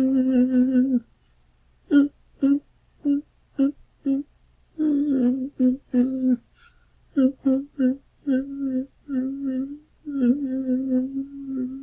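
A man whimpering as if sick: a held whine that stops about a second in, then a run of short whimpers, then longer drawn-out whimpers, the last one held through to the end.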